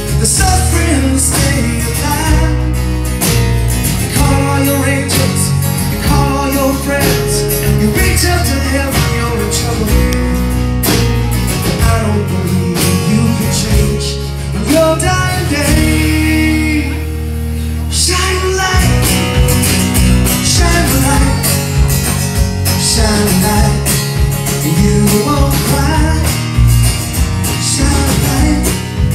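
Live rock band playing a song: drum kit, bass, acoustic guitar and keyboards, with a man singing. About halfway through the band thins out for a few seconds, then comes back in full.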